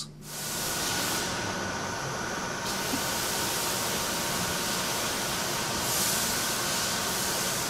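Steady rushing air noise of the processing room's air-handling equipment, with two faint, high, steady tones running through it.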